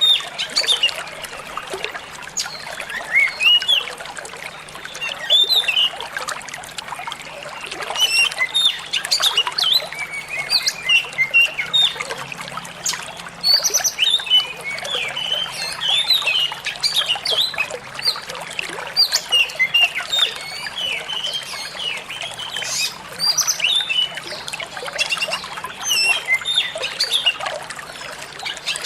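Oriental magpie-robin (kacer) singing a rapid, unbroken run of short chirps and whistles over steadily trickling water.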